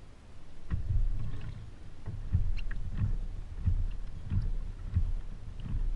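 Pedal-drive kayak being pedalled: a regular low thump with a light click on each stroke, about one and a half strokes a second, over low hull and water noise.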